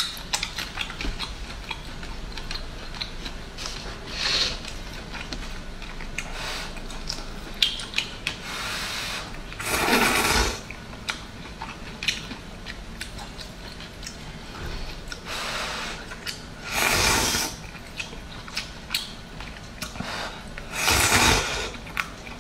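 Close-up eating sounds: chewing with many small wet mouth clicks, and several loud slurps of hot and sour noodles, each lasting up to about a second.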